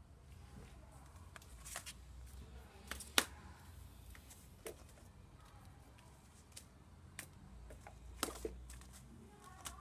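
Scattered sharp clicks and knocks of metal-bodied smartphones being handled, set down and tapped on a woven placemat. The loudest comes about three seconds in.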